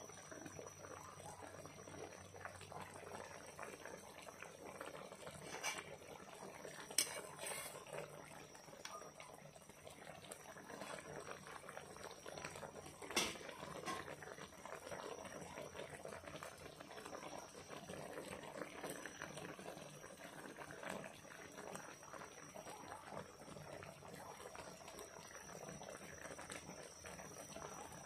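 Liquid simmering in a pan of fish, onions and green chillies: a soft, steady bubbling, broken by a few sharp clicks about six, seven and thirteen seconds in.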